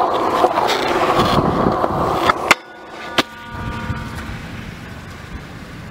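Longboard's soft wheels rolling on concrete close by: a loud steady rolling noise with two sharp clacks about two seconds in. The rolling then drops off to a quieter, more distant rumble with one more clack.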